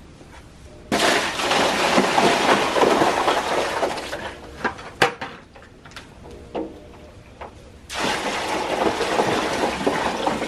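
Water poured from two 5-gallon plastic buckets into a rubber stock tub, each pour a steady gush lasting about three seconds. The first pour starts about a second in and the second near the end, with a few light knocks and clicks between them.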